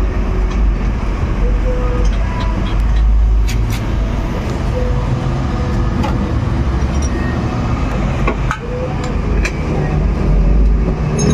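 Steady low rumble of a running vehicle engine, with scattered light clicks and taps over it as the muffler is being bolted on.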